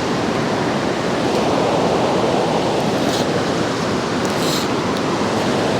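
A fast mountain river running high, its water rushing steadily over rapids.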